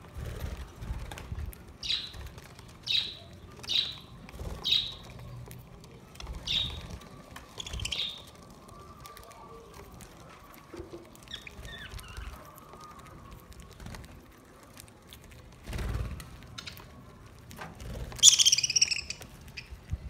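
Budgerigars chirping: six short chirps spread over the first eight seconds, a few fainter calls around the middle, and one louder call of about a second near the end. A dull thump comes a few seconds before the end.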